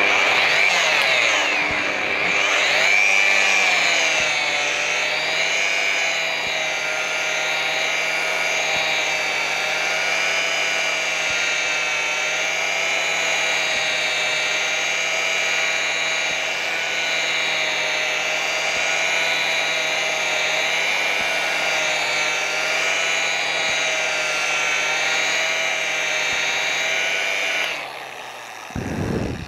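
Electric rotary polisher with an orange foam pad running at low speed on plexiglass with polishing compound: a steady motor whine whose pitch wavers for the first few seconds, then holds. Near the end it is switched off and winds down.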